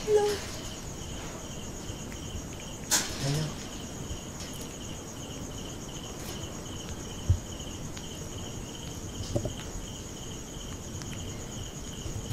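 Crickets chirping in a steady, pulsing trill, with a few scattered knocks and rattles, the sharpest a low thump about seven seconds in.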